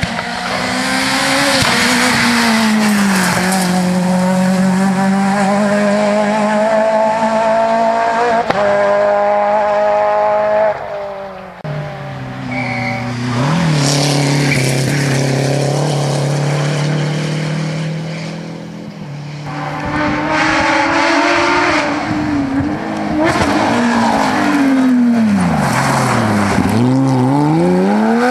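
Rally cars at full speed on a stage, one after another, including a Renault 5 GT Turbo and a Porsche 911: engines held at high revs with gear changes as each car passes. Near the end the engine note drops steeply as a car brakes for a corner, then climbs hard as it accelerates away.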